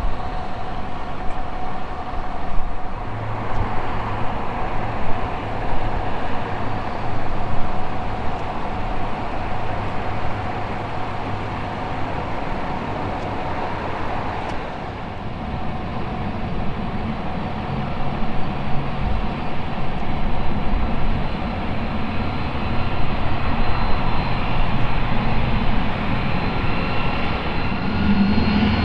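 Airbus A300-600 freighter's two Pratt & Whitney PW4158 turbofans running at taxi power: a steady jet whine over a rumble. Higher whine tones grow stronger near the end as the aircraft taxis close by.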